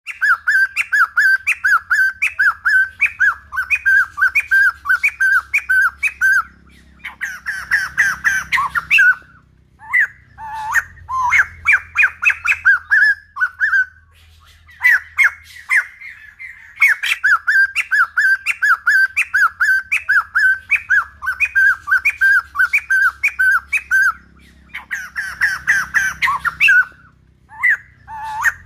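White-crested laughingthrush singing loudly: long runs of evenly repeated notes, two or three a second, broken by harsher, chattering, squawky phrases and a few short pauses.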